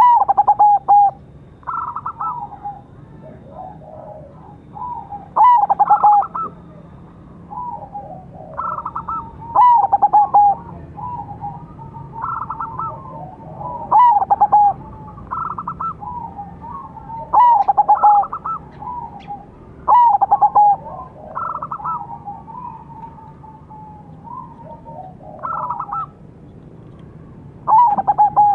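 Zebra dove cooing: repeated phrases of quick stuttering notes, each trailing into a longer coo, coming every few seconds.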